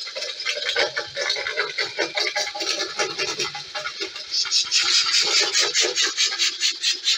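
Homemade alpha-type Stirling engine running, with a squeak and grind on every stroke from the brass piston-slide guides on the hot side, which the owner thinks are softening in the heat and binding on the steel. The squeaking gets louder and shriller about halfway through.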